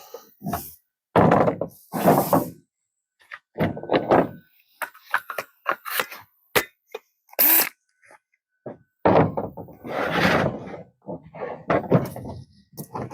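Irregular thunks, knocks and clatter of tools and gear being handled and set down, with one sharp hit about seven and a half seconds in.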